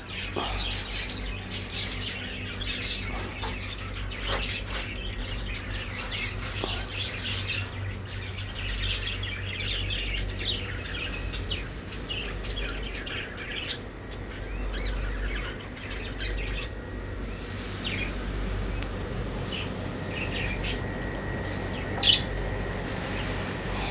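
Many caged pet birds chirping at once, a dense chatter of short calls that thins out after about fourteen seconds, over a low steady hum.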